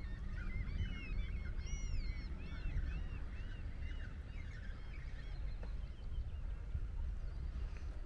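A flock of birds calling: many short arching calls overlap over the first half and thin out after, under a steady low rumble.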